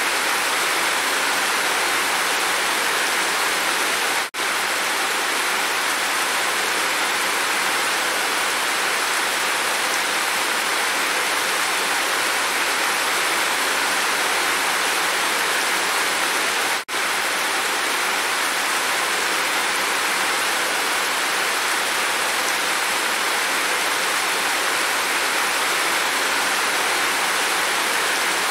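Steady rain falling and running off a roof edge, a dense even hiss of water. The sound drops out for a split second twice, about 4 and 17 seconds in.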